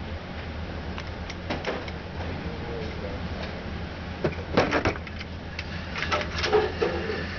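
Sharp metal clicks and clatter from a semi-automatic pistol being handled, in a cluster about four and a half seconds in and again around six seconds, over a steady low hum.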